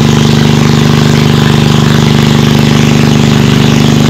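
A small engine running loud and steady at a constant speed, with no change in pitch.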